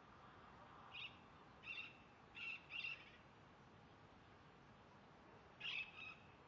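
Faint bird calls over a low steady hiss: four short calls in quick succession about one to three seconds in, then two more near the end.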